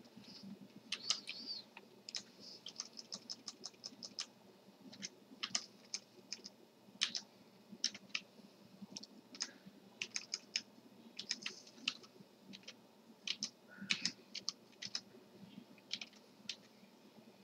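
Computer keyboard keys being typed, irregular light clicks coming in quick runs with short pauses between them.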